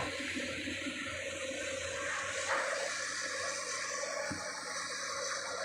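Steady rush of flowing water, with a faint low hum beneath it.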